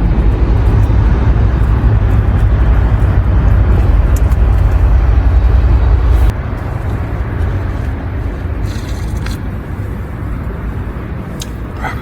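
Wind rumbling and buffeting, with a loud low rumble that drops abruptly about six seconds in to a quieter steady rustle of wind and leaves.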